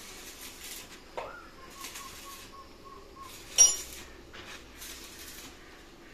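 Rag rubbing over a truck diesel cylinder head with its valves fitted, in a series of short wipes, with one sharp metallic clink about three and a half seconds in. A warbling call that rises then holds steady sounds behind it from just after a second in.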